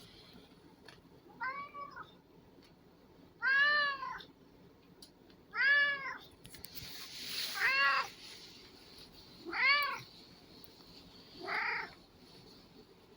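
Domestic black cat meowing over and over, about six calls roughly two seconds apart, each rising then falling in pitch: insistent meows demanding breakfast.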